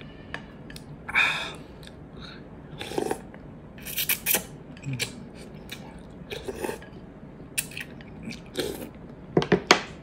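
Close-up eating sounds: slurping noodles and broth from a spoon, and chewing, in separate short bursts. A few sharp clicks come close together near the end.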